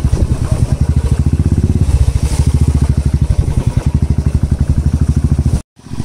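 Royal Enfield Bullet's single-cylinder four-stroke engine running with a rapid, steady thump as the motorcycle wades through a deep pond; it cuts off suddenly near the end.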